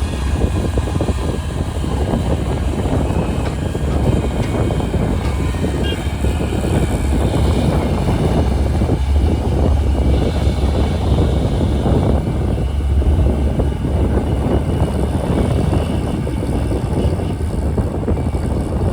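JCB backhoe loader's diesel engine running steadily with a low rumble.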